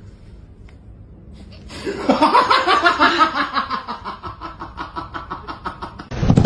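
A person laughing in quick rhythmic bursts from about two seconds in, slowly dying away. Near the end a loud, low rattling noise cuts in abruptly.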